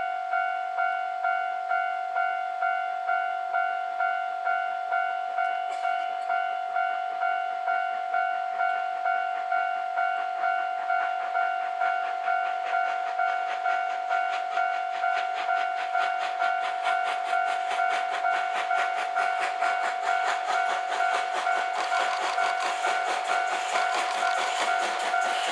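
Japanese level-crossing warning bell ringing in a steady, even rhythm. From about halfway through, the sound of the approaching SL Yamaguchi steam train grows louder beneath it.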